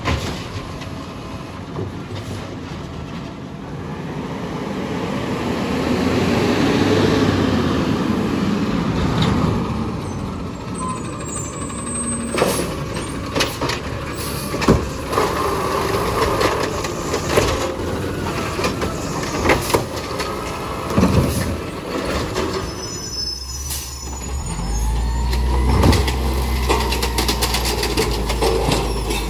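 Automated side-loader garbage trucks collecting curbside carts: the diesel engine runs and revs up while the hydraulic arm grabs, lifts and shakes the carts into the hopper, with repeated knocks and clatter of the carts against the truck. Near the end a deep, steady engine rumble swells as the arm works.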